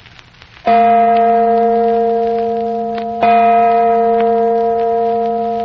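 A deep bell struck twice, about two and a half seconds apart. Each stroke rings on with a steady tone and slowly fades.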